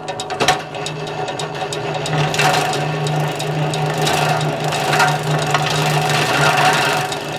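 Electric forage cutter running: a steady motor hum with rapid clicking and irregular clattering of the cutter mechanism, growing louder in several swells.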